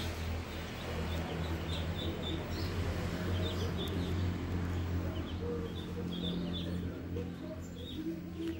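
Muscovy ducklings peeping, many short high calls scattered throughout, over a steady low hum that swells in the middle.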